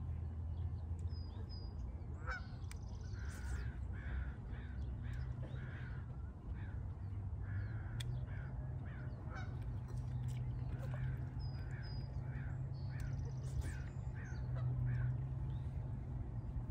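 Birds calling in a long run of short repeated calls, about two a second, from about two seconds in until near the end, over a steady low rumble.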